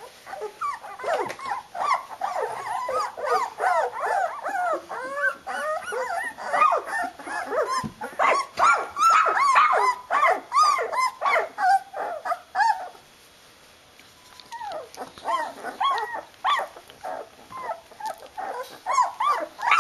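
A litter of 13-day-old flat-coated retriever puppies squealing and whining together, many short, high, rising-and-falling cries overlapping. The cries die away briefly about two-thirds of the way through, then pick up again.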